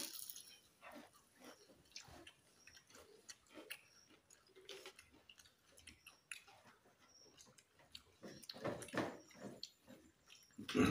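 Several people eating rice and curry with their hands: chewing, lip smacks and fingers and spoons clicking on plates, in many small irregular sounds, louder for a moment about a second before the end. A faint high tick recurs roughly once a second.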